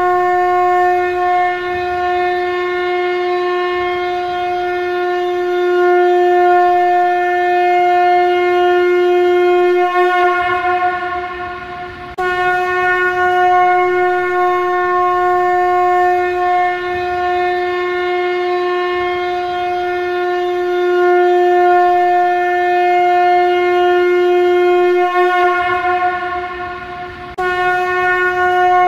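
Shankha conch shell blown in long, steady blasts on a single note. About ten seconds in, the note wavers and tails off, then a fresh blast starts sharply a couple of seconds later; the same happens again near the end.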